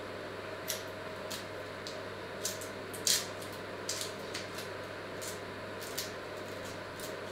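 A small knife cuts pieces off a vegetable held in the hand over a metal colander, giving about eight short, irregular clicks and snicks, over a steady low hum.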